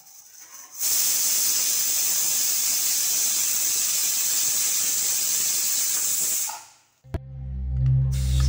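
Aluminium stovetop pressure cooker whistle blowing off steam: a steady, loud hiss that starts suddenly about a second in, lasts about six seconds and then dies away. It is the sign that the cooker has come up to pressure. Background music starts near the end.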